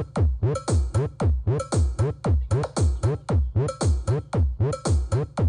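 Electronic dance music playing loud through a mobile sound system's subwoofers on a bass test. A heavy kick drum hits about four times a second, and each bass hit drops in pitch.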